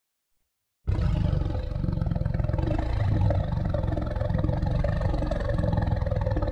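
Monster sound effect: a long, low growl with a fast rattling pulse. It starts suddenly about a second in after near silence and holds steady.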